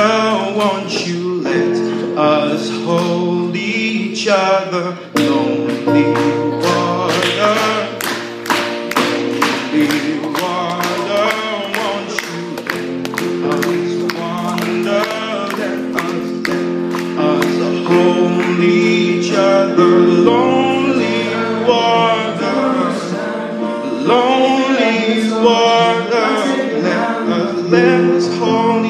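Live pop song: a male voice singing over strummed acoustic guitar and digital piano chords, with the guitar strumming in a steady rhythm.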